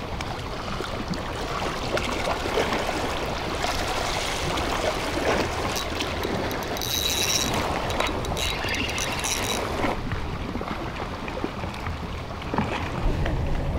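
Steady seaside ambience: wind rumbling on the microphone and sea water washing against a concrete breakwater, with a brief high-pitched whir in the middle.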